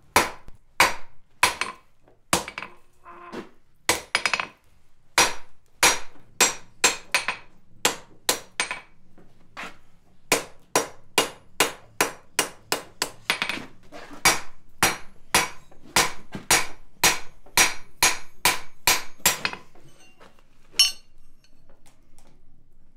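Blacksmith's hand hammer striking a red-hot bar on an anvil, drawing it out into a thin flat section: a steady run of sharp, ringing blows at about two a second. The blows stop about three seconds before the end.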